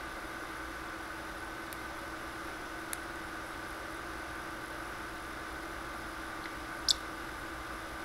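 Steady electrical hum with a few held tones, over which a parrotlet gives two brief high chirps: a faint one about three seconds in and a sharper, louder one near the end.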